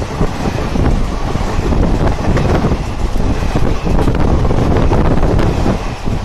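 Diesel-hauled passenger train passing at speed: a loud, continuous rumble and clatter of wheels on the rails, with wind buffeting the microphone.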